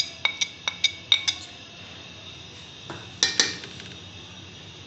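Kitchenware clinking with a short ringing tone, as spice powder is knocked out of a small glass bowl into a pan: a quick run of about six taps in the first second and a half, then two louder clinks a little past three seconds in.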